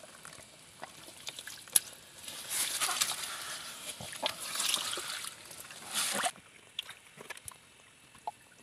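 Water sloshing and splashing in a shallow muddy pool as a hand rummages in a crevice under a rock, feeling for crabs, with a sharp knock about two seconds in. The splashing lasts about four seconds, then stops suddenly, leaving only a few small clicks.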